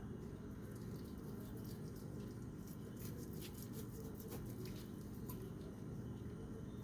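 Knife cutting a cooked ribeye away from its bone on a cutting board: faint scattered scrapes and small clicks over a steady low hum.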